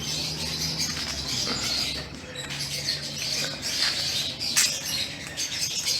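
Many birds chirping and squawking together, a busy chorus of short, high-pitched calls that overlap throughout.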